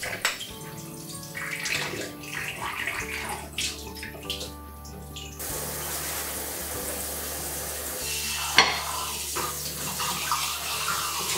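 Kitchen tap running into a stainless steel sink as dishes are rinsed under it; the flow gets fuller about halfway through, and there is one sharp knock a few seconds later.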